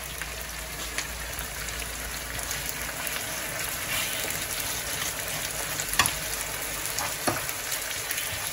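Turkey strips, onion and carrot frying in plenty of oil in a frying pan, a steady sizzle. A few sharp clicks of a metal spoon against the pan as it is stirred.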